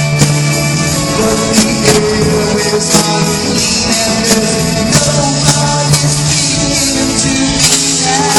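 Live rock band with a violin section playing: held string notes over a drum beat with regular sharp hits.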